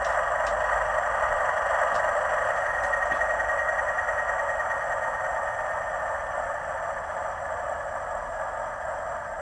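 Hornby TTS sound decoder in a model Class 97/37 diesel locomotive playing its diesel engine sound through the model's small speaker, a steady thin engine drone that slowly fades.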